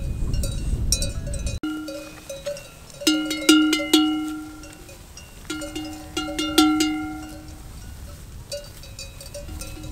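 Bells worn by a walking flock of sheep clanking in irregular clusters, several bells of different pitch ringing and fading between strikes. A low windy rumble fills the first second and a half and cuts off abruptly.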